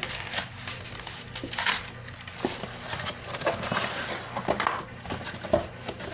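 Packaging being handled and torn open: irregular crinkling and rustling with scattered small clicks.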